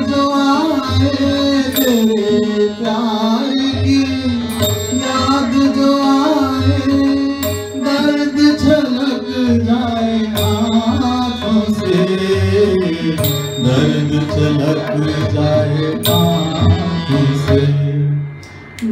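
Harmonium playing a melodic interlude in a Todi-based raag over tabla keeping a Punjabi theka (addha/sitarkhani taal). The music drops away briefly near the end.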